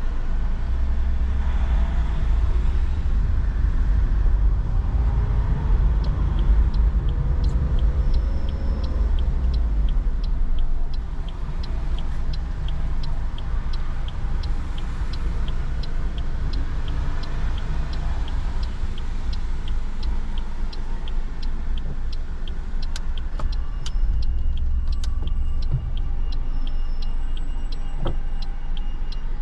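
Car cabin noise while driving on a wet road: a steady low rumble of engine and tyres, with faint evenly spaced ticks running through most of it.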